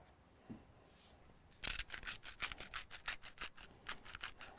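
Salt being worked out of a dispenser over eggplant slices: a quick, even run of rasping strokes, about seven a second, starting about a second and a half in. The salt is damp from humidity and won't flow freely.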